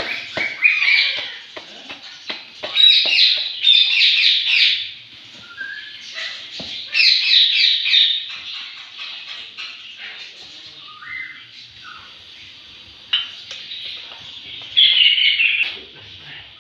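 A bird chirping in four short bursts of quick, high notes, with quieter gaps between them.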